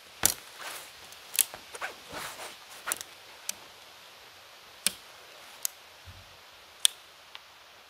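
Tent gear being handled: a run of irregular sharp clicks and snaps, about ten in all, the loudest right at the start and about seven seconds in.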